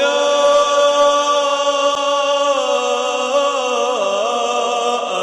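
A man reciting the Quran in melodic tajweed style, holding one long drawn-out note. The note is steady at first, then wavers in pitch and dips about four seconds in.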